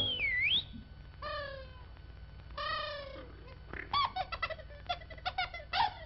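Cartoon bird calls and whistles. A swooping whistle dips and rises, then come two falling calls about a second and a half apart, and over the last two seconds a quick run of short chirps.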